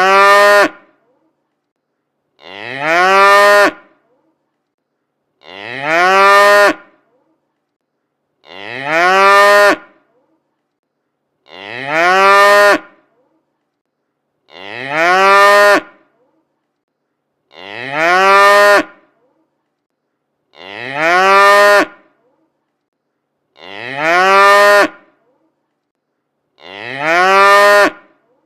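A cow mooing: the same single moo repeats about every three seconds, with silence between calls. Each moo rises in pitch and then holds.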